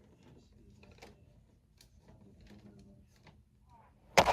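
Faint scattered clicks and light handling of hard objects, then one sharp, loud knock near the end.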